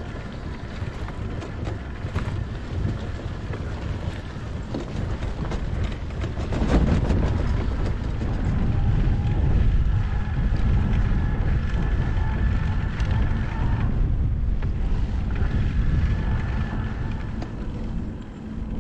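Strong wind buffeting the microphone while riding a bicycle outdoors, a dense rumble that gets louder about a third of the way in. A faint steady whine runs underneath in the middle.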